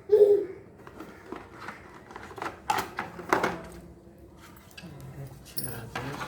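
Phone box and packaging being handled: irregular rustling and clicking, with two sharp clacks about three seconds in. A voice is heard briefly at the start.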